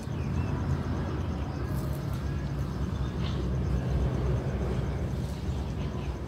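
Outdoor background noise: a steady low rumble, with a few faint short high chirps over it.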